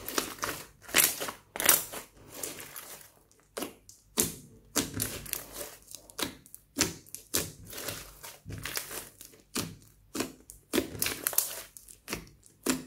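Hands squeezing and pressing a large mass of glossy slime, giving irregular crackling, popping squelches, about two bursts a second.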